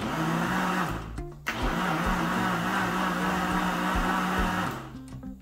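Small countertop blender running on a liquid pudim mix of eggs, condensed milk and milk, switched off briefly after about a second and a half, then run again for about three seconds before stopping.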